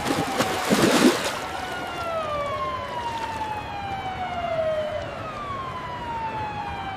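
Sharp bangs at the start, then a siren wailing in long, slowly falling sweeps, one overlapping the next.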